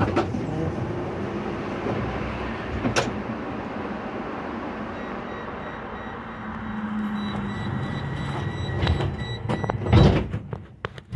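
Tram heard from inside as it pulls away from a stop: a clunk at the start, then steady rumbling running noise, with a high steady whine joining about seven seconds in and a loud thump about ten seconds in.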